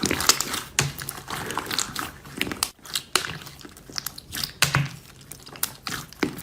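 Slime being squeezed and worked by hand, giving irregular sticky pops and crackles.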